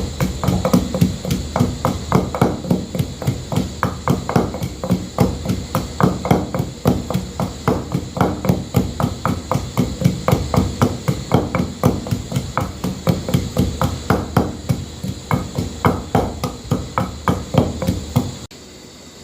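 Rapid, even knocking, about four strikes a second, of ingredients being cut or crushed by hand for cooking. It stops abruptly near the end.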